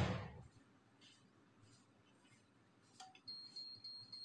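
A sharp knock right at the start. About three seconds in, a Beurer steam sterilizer for baby bottles starts a run of high beeps, signalling that its sterilizing cycle is complete.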